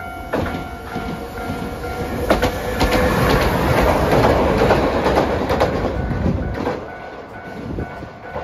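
Hiroshima Electric Railway 3950-series articulated tram passing close by, with wheels clacking over the rail joints. The running noise builds to its loudest around the middle and fades after about seven seconds.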